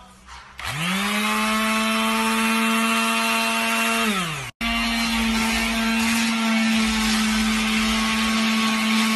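Electric power tool, which she calls her sandblaster, spinning up about half a second in with a rising whine that settles to a steady pitch. It winds down just after four seconds, then runs steadily again with a harsher hiss over the whine.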